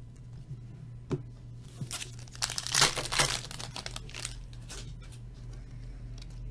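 Wrapper of a hockey trading card pack being torn open and crinkled, a burst of crackling about three seconds in after a single click.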